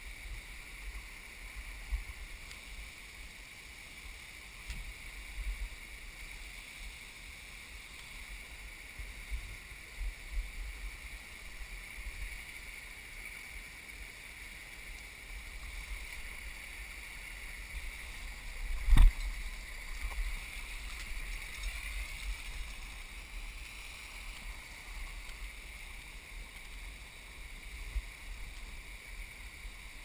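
Steady rushing of the waterfall and stream, with low bumps from the climber's camera and one sharp knock a little past the middle.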